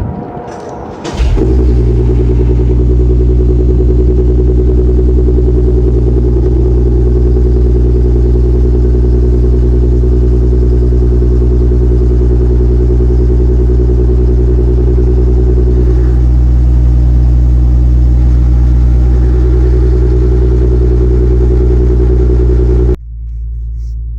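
Nissan VQ V6 engine through a Borla exhaust with valve mufflers, running loud at a steady, unchanging pitch. It comes in abruptly about a second in and cuts off sharply near the end.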